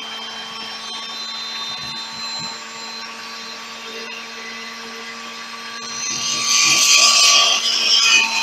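Bosch washing-machine motor running steadily on battery DC, a steady whine with a motor hum beneath it. About six seconds in, a louder high hiss joins it.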